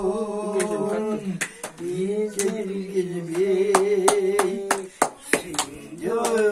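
Elderly women singing a slow song together in long, held notes, with steady hand clapping keeping time, about two to three claps a second. The singing pauses briefly twice.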